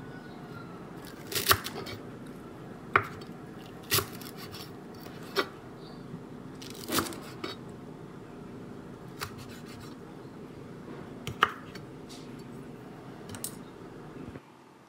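Kitchen knife slicing through a bundle of chives and striking a wooden chopping board: single sharp knocks, about nine, spaced every second or two. A steady low hum runs underneath.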